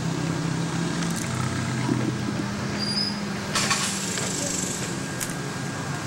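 A steady low mechanical hum, like a motor running, over outdoor background noise, with a short high chirp about three seconds in.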